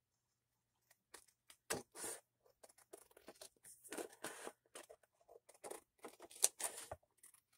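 Scissors snipping through patterned paper glued onto a thin cardboard book cover, a series of irregular short snips starting about a second in.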